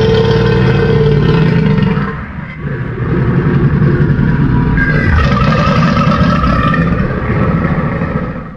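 Stock crocodile growl sound effect: two long, rumbling growls, the first fading about two seconds in and the second starting half a second later and stopping at the end.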